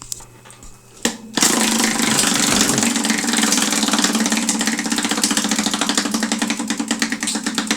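Prize wheel spinning, its pointer ticking rapidly against the pegs; the ticking starts about a second and a half in, just after a single click.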